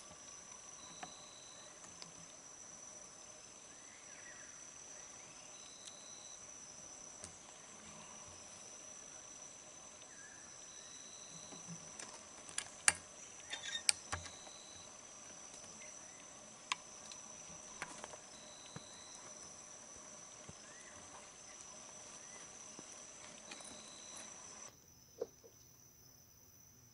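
Steady high-pitched drone of insects, with a short chirp repeating about every five seconds. A few sharp clicks come about halfway through, the loudest sounds here. Near the end the drone cuts off suddenly.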